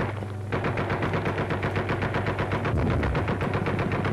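Machine-gun fire: a fast, evenly spaced stream of shots, roughly ten a second, that pauses briefly at the start and then runs on, over a steady low drone.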